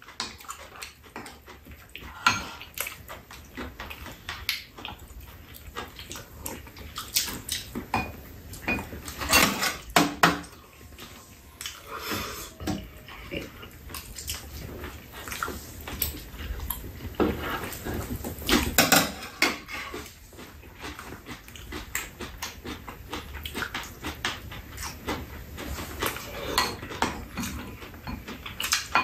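Close-up eating sounds: spoons and chopsticks clinking and scraping against bowls and a frying pan, with chewing and mouth noises, irregular throughout.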